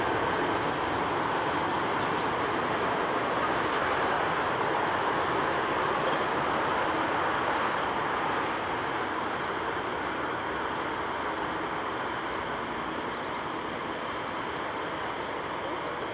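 Boeing 747-8F freighter's GEnx jet engines running at taxi power after landing, a steady jet rush that eases off a little in the second half.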